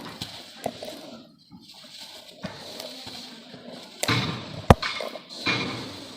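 Lumps of red dirt being crushed and crumbling, a gritty crackle with scattered small cracks, a louder crunch about four seconds in, a sharp snap just after it, and another crunch near the end.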